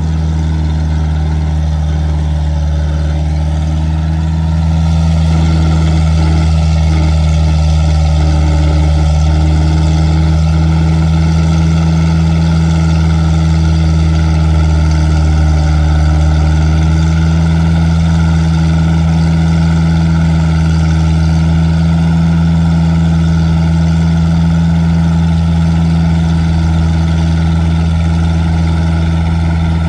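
Farm tractor's diesel engine running steadily as it pulls a combined bed-forming, herbicide-spraying and plastic-mulch-laying implement across the field, a constant low hum that grows a little louder about five seconds in.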